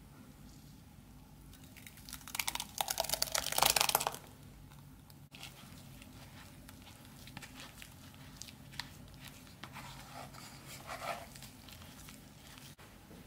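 Thick blended blood-orange pulp poured from a glass jug into a fine metal mesh sieve, a loud wet crackling pour lasting about two seconds. Then quieter wet scraping and squelching as a wooden spoon presses the pulp through the mesh.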